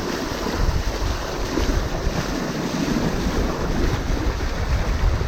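Heavy wind buffeting the microphone over waves and rushing water aboard a sailboat under way, a steady loud roar with a deep rumble.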